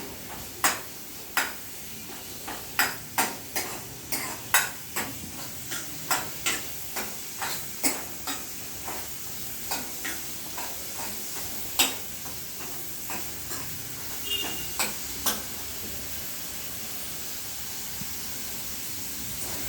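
Chopped onions sizzling steadily in hot oil in a pan, while a spoon stirs them with sharp, irregular knocks and scrapes against the pan about once or twice a second. The stirring stops about three-quarters of the way through, leaving just the sizzle.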